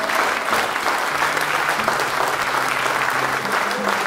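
Audience applauding steadily, a dense patter of many hands clapping in a concert hall.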